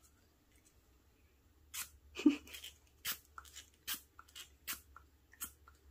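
Syringe being handled over paper: a string of sharp clicks and taps, about two a second, starting a couple of seconds in.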